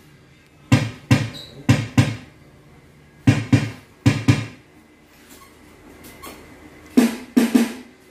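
A handheld microphone being tapped and heard through the sound system: sharp thumps with a short ring-out, in pairs, then three together near the end.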